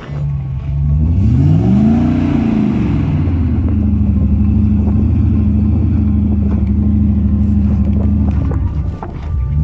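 A 4x4 pickup's engine is revving hard as the truck climbs a steep, loose sandy slope. Its pitch swells and falls about a second in, then holds high and steady under load. It drops briefly near the end before climbing again.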